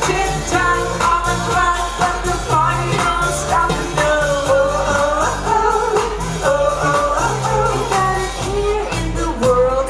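Live band playing a pop-rock song: a woman's lead vocal over electric guitar, electric bass and a drum kit keeping a steady beat.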